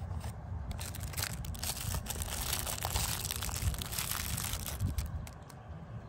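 Thin clear plastic wrapper crinkling and tearing as it is pulled open by hand to free a small toy, a dense crackle starting about a second in and stopping about five seconds in.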